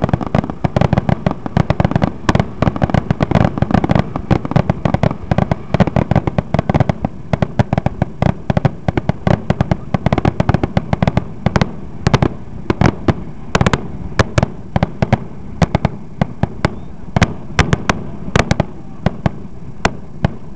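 Aerial fireworks grand finale: a dense, rapid barrage of bangs that thins out over the second half into separate booms a fraction of a second or more apart.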